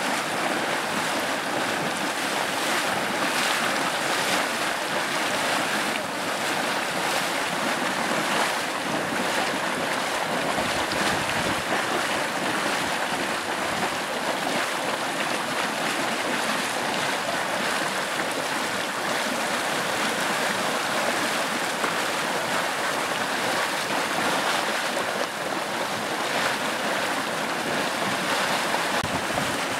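Mud Volcano hot spring: grey acidic mud boiling and churning in its pool while steam pours from the vent in the cavern wall. The noise is a steady rush with small irregular surges.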